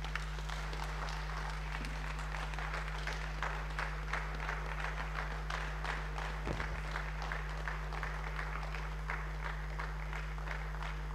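Audience applauding: a steady round of many hands clapping, over a low steady electrical hum.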